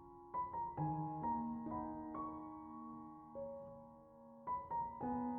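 Soft background piano music: single notes and chords struck about every second or so, each left to ring and fade.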